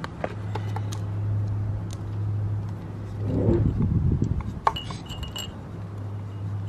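Light clicks and small metallic clinks of hands handling a plastic cup and the carburetor fittings under a small engine's float bowl, over a steady low hum.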